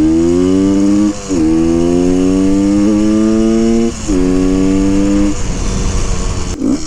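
1974 Honda MT250 Elsinore's single-cylinder two-stroke engine pulling away under way, its pitch climbing and dropping twice as it shifts up, about a second in and about four seconds in. Near the end the engine note fades away.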